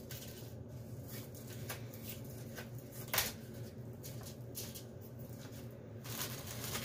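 Saltine crackers being pulled from their plastic sleeve and set down one by one on a foil-lined baking pan: light taps, crinkling and rustling, with one sharper tap about three seconds in, over a low steady hum.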